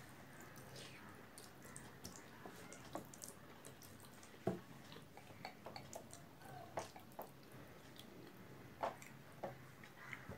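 Faint eating sounds: scattered small wet clicks and smacks from chewing and from fingers mixing rice on a plate, the sharpest about halfway through and again near the end.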